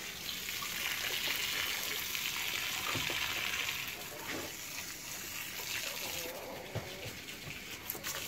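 Water running from a garden hose and splashing into a plastic basin among plants. The flow is loudest for the first few seconds, then quieter.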